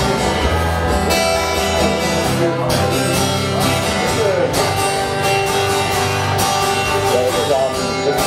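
Live band playing a song's instrumental opening: strummed acoustic guitar over a bass line and a steady drum beat.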